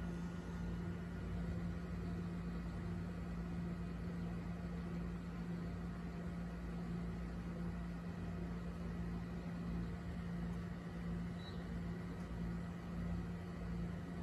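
A steady low hum with an even hiss underneath, unchanging throughout.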